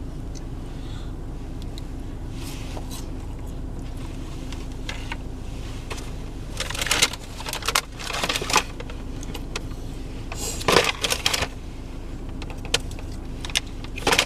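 Steady low hum of an idling car heard from inside the cabin, with a few short rustling and clattering handling noises in the middle.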